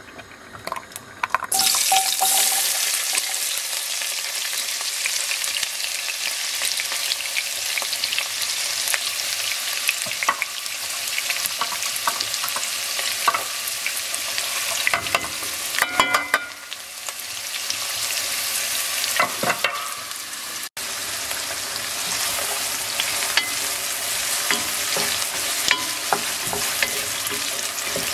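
Chopped red onions frying in hot oil in a pot, the sizzle starting suddenly about a second and a half in as they hit the oil, with a wooden spoon knocking and scraping against the pot a few times as they are stirred.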